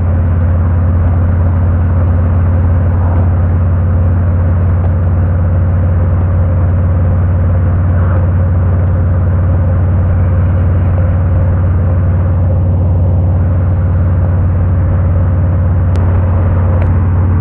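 Harley-Davidson Road King's V-twin engine running steadily at cruising speed, with road and wind noise, heard from on the motorcycle.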